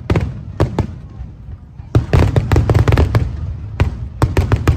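Fireworks shells bursting in a rapid barrage of sharp bangs. The bursts thin out briefly about a second in, then a denser volley resumes about two seconds in.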